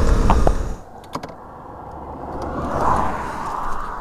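Honda CRF motorcycle riding, its engine and wind noise loud for under a second, then cutting off abruptly to much quieter road ambience with a few light clicks and a swell of noise a few seconds in.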